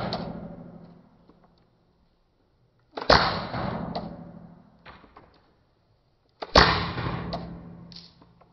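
Airsoft gun shots: two sharp cracks about three and a half seconds apart, each with a faint click just before and a long fading ring, the tail of an earlier shot dying away at the start.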